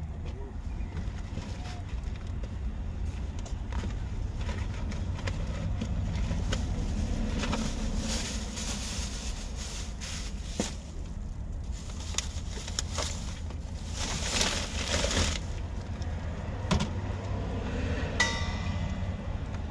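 Plastic bags and food packages rustling and clicking as they are handled, over a steady low rumble of street traffic; a brief high squeak near the end.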